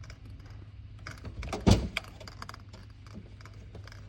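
A single sharp thump about a second and a half in, much louder than the rest, over scattered light clicks and a low steady hum.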